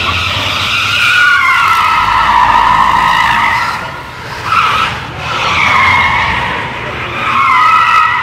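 Tyres of a Hyundai Kona EV squealing on a polished concrete floor as the car corners hard. It is a loud, wavering squeal that eases briefly about four and five seconds in, then picks up again.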